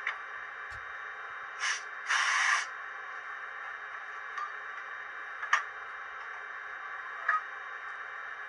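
Sound decoder of a Roco H0 Vectron model locomotive playing prototype sounds through its small speaker, with a steady hiss throughout. About two seconds in come a short air hiss and then a louder half-second hiss, after a click and a low thump near the start, and a few faint clicks follow: the locomotive's coupling sound over its running air compressor sound.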